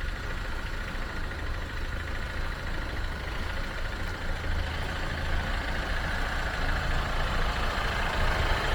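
A 4x4's engine running steadily with a low rumble, growing gradually louder through the second half.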